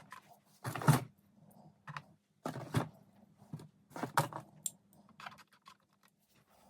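Small clamping clips being taken off glued model-boat hull parts and put down, clicking and clattering in three short bursts about a second and a half apart.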